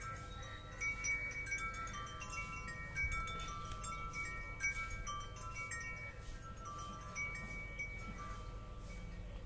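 Chimes ringing: many overlapping high tones, each held about a second, in an unhurried, irregular sequence over a low steady rumble.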